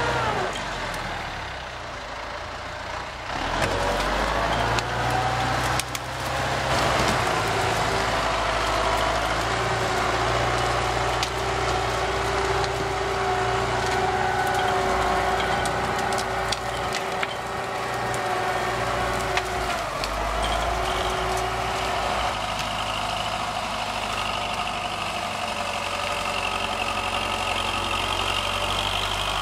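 Forestry tractor's diesel engine running under load as it pulls a loaded log trailer over rough forest ground, its pitch drifting as the load changes. The sound changes abruptly about three seconds in and again around twenty-two seconds.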